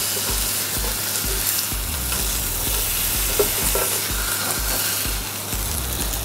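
Thin sirloin steak slices topped with mozzarella frying in a hot ridged grill pan, a steady sizzle.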